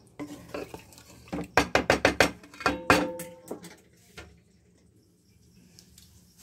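A spoon knocking and scraping against a metal pot while stirring paneer curry. It makes a quick run of clacks, the loudest few ringing briefly, and stops about four seconds in.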